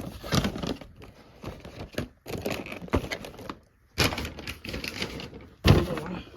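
Irregular rustling and crinkling of packaging with a few sharp knocks as small items are handled and arranged, the loudest knock a little before the end.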